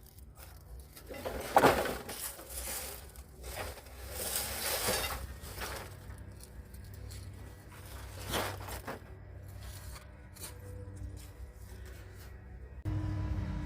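Scraping, knocking and clattering of car parts being worked loose and pulled off during a teardown, with a sharp knock about a second and a half in. Background music starts near the end.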